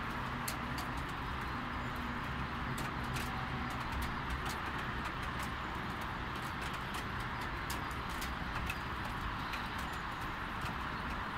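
Light rain falling: a steady hiss of rain with many single drops ticking sharply nearby on a hard surface. A faint low hum fades out a few seconds in.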